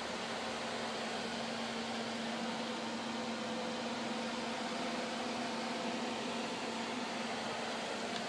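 Steady whirring hum of the powered-up electrical cabinet of a Fryer CNC lathe, with its spindle drive and control PC switched on, holding a constant low tone with an even hiss over it.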